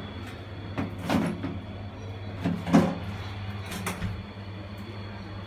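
Hatari exhaust fan running with a steady hum, unable to draw air out against the suction of the restaurant's ventilation system. A handful of short knocks sound over it, the loudest near three seconds in.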